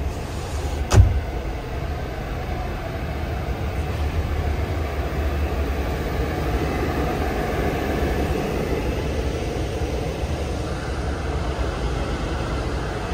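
Scania K400 coach engine running steadily with a low rumble. A single sharp knock sounds about a second in.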